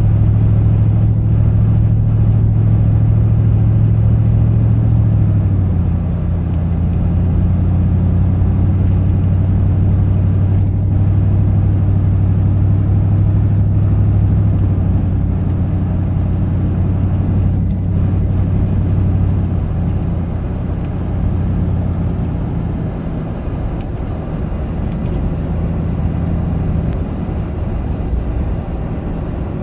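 A car's engine and tyre noise, heard from inside the cabin while driving: a steady low drone that drops slightly in pitch about five seconds in and fades somewhat in the last third.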